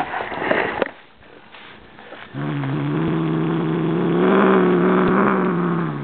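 Siamese cat growling: one long, low, steady growl that starts about two seconds in and lasts nearly four seconds, swelling a little in the middle, after a short rough noise in the first second.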